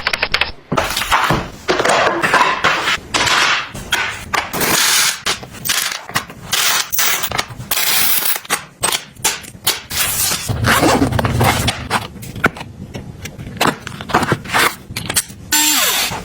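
Household objects being handled and set down: a quick run of clicks, knocks and scrapes over rustling, with a heavier stretch of thumps and scraping about ten seconds in.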